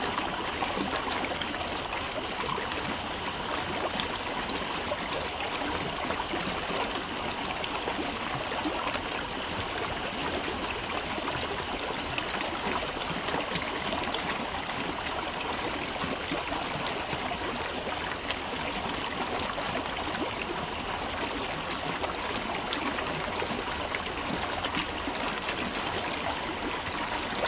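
A brook's water flowing in a steady, unbroken babble.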